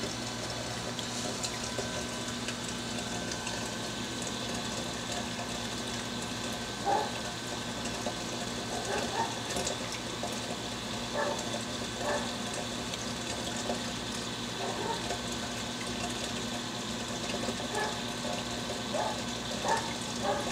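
Reef aquarium pumps running: a steady low hum under a constant wash of moving water, with short faint blips every second or two.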